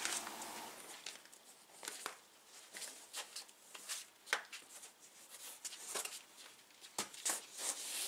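Faint scattered rustling and soft clicks of a foam exercise mat being unrolled and laid out on a concrete floor.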